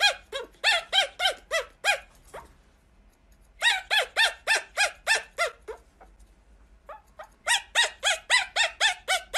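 Pomeranian puppy yapping in quick runs of short, high-pitched yaps, about four a second, with pauses of a second or two between the runs.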